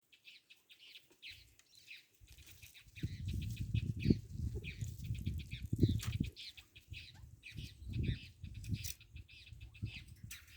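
Small birds chirping in quick repeated short calls, over an irregular low rumble that comes in about two seconds in.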